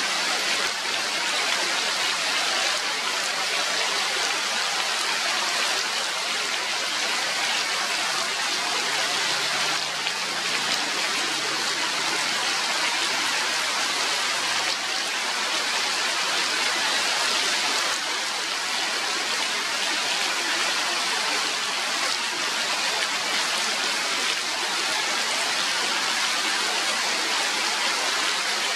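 Heavy rain falling steadily on forest foliage, an even hiss with no let-up.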